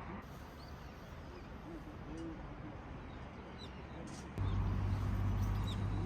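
Small birds chirping faintly over outdoor background noise, then about four seconds in a steady low engine hum starts abruptly and is the loudest sound.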